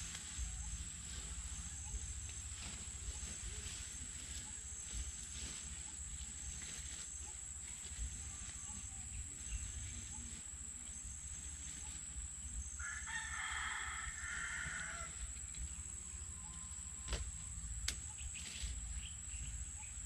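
A rooster crows once, a pitched call about two seconds long, a little past the middle. Under it run a steady high-pitched whine and a low rumble, with a few small knocks and rustles.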